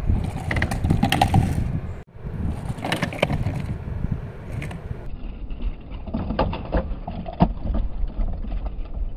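Four-wheeled LEGO Technic self-balancing bike rolling over deck boards: a low rumble of small plastic wheels with scattered clicks and rattles. The sound drops out briefly about two seconds in.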